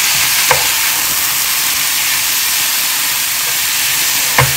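Lot noodles and beef sizzling in a hot nonstick frying pan, a steady hiss, as a spatula turns them; two short knocks of the spatula against the pan, about half a second in and near the end.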